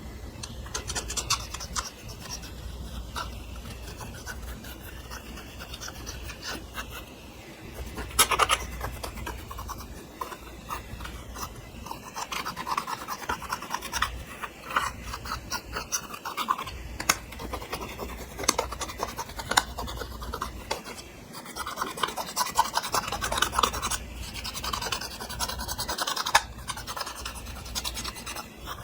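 Clear slime being worked by hand with makeup and glitter mixed in, making sticky crackles, clicks and scratchy rubbing noises that come in denser patches.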